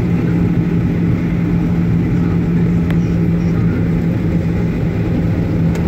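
Steady cabin drone inside a Boeing 737-800 taxiing on idle engines: a strong low hum over a rumble.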